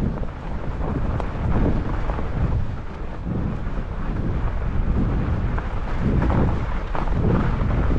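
Salsa Beargrease fat bike riding a snowy trail: a continuous low rumble of the fat tyres over packed snow, with wind buffeting the microphone, swelling and easing unevenly every second or so.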